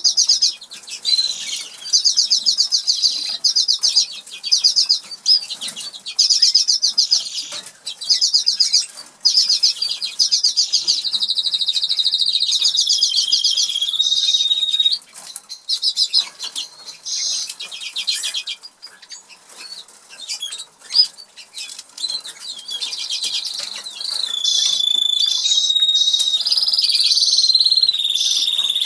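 Norwich canary singing: bursts of fast, high-pitched trills repeated over and over, a quieter patchy stretch past the middle, then longer held whistled notes and rolls near the end.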